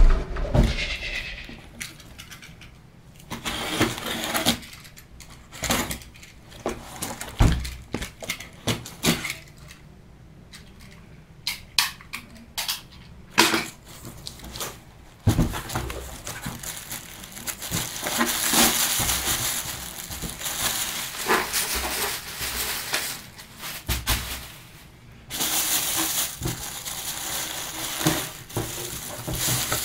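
Hands opening a cardboard shipping box: scattered knocks and scrapes of cardboard. About halfway through this gives way to steady crinkling and rustling of the plastic bags wrapped around the fuel pump module.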